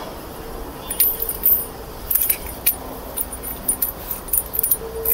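Steel drive chain and sprockets of a Mahindra Scorpio chain-type transfer case being handled: a run of short metallic clinks and jingles of chain links from about a second in.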